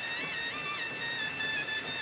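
Instrumental traditional-style music: a single melody line of held notes with quick ornamental turns over a steady drone.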